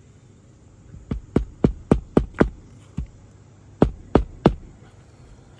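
Hand hammer driving standard roofing nails through a new asphalt shingle: about ten sharp blows, a quick run of six, then a single one, then three more.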